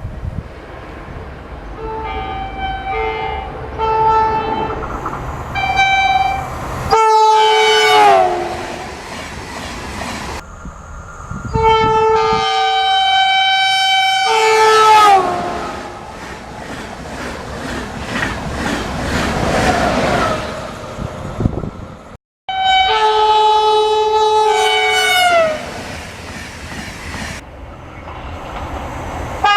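Train horns sounding from several trains in succession, in clips cut one after another. There are short toots on two notes, then long blasts that drop in pitch as each train passes. Wheel and rail noise runs under the horns.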